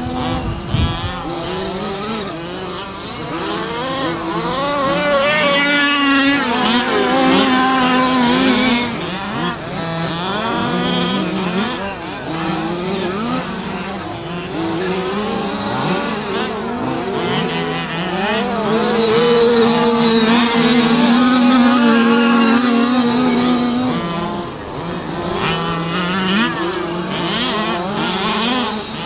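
Several 1/5-scale RC cars' small two-stroke petrol engines racing around a dirt track, their whines overlapping and constantly rising and falling with throttle; in the second half one engine holds a steady pitch for a few seconds.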